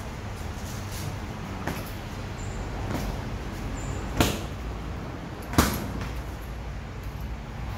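Boxing gloves smacking into a coach's focus mitts and padded body protector during pad work: a few scattered hits, the two loudest about four and five and a half seconds in, over a steady low background rumble.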